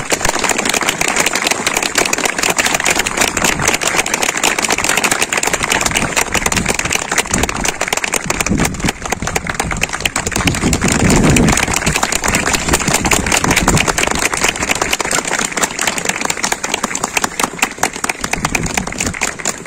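Crowd applauding steadily after a speech, dense hand-clapping that swells a little about halfway through.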